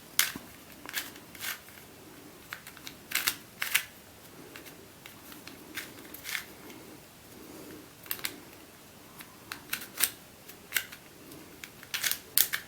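Rubik's UFO twisty puzzle being turned by hand to scramble it: irregular sharp plastic clicks and clacks, some coming in quick pairs, as its layers and discs snap round.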